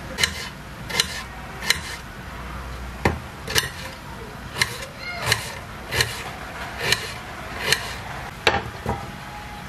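Knife chopping salad vegetables on a cutting board: about a dozen sharp knocks at an even pace, roughly one every 0.7 seconds.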